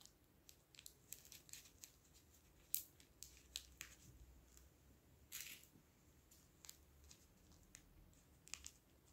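Faint rustling and small clicks of tracing paper and carbon paper being pressed and smoothed flat on fabric by hand, with a sharper tick a little under three seconds in and a short rustle about halfway through.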